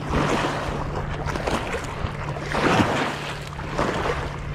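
Water splashing and lapping at the lake's edge in repeated surges, with wind rushing over the microphone.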